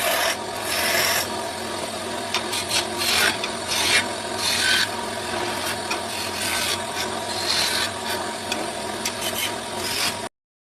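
A tool rasping and scraping on wood as a wooden charpai leg is shaped, in uneven continuous strokes that cut off suddenly near the end.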